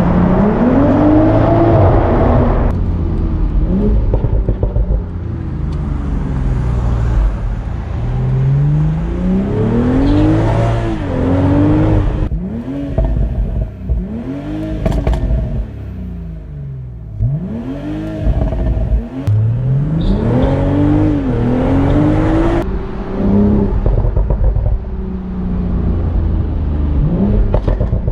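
BMW Z4 M40i's turbocharged 3.0-litre inline-six revving up and dropping back again and again under hard acceleration and lift-off. A few sharp cracks from the exhaust come about halfway through.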